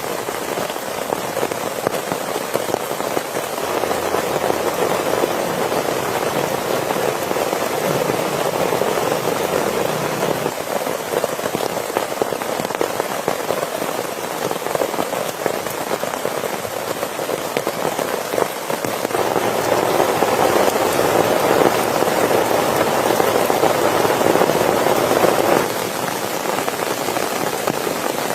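Steady, heavy rain falling on a surface. It grows louder for several seconds, then drops back suddenly near the end.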